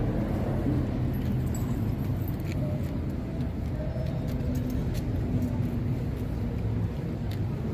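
Steady low rumble of road traffic, with a few faint, sharp clicks and jingles scattered through it.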